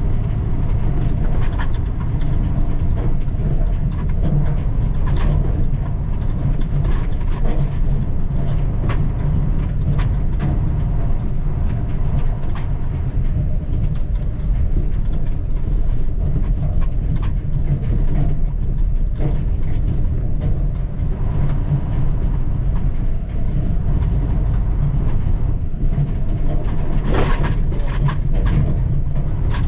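Heavy diesel log truck's engine running steadily while driving, with frequent rattles and knocks from the truck and its load.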